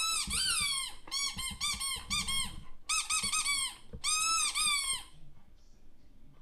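Squeaky toy sound effect played through a TV's speakers. First comes a long squeak, then a quick run of short squeaks, then two longer bouts of squeezing; it stops about five seconds in.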